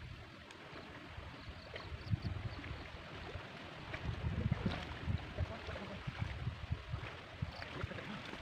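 Light splashing and sloshing of shallow pond water as a net is hauled through it by people wading, with a scatter of small ticks. Gusts of wind rumble low on the microphone, strongest twice: about two seconds in and around the middle.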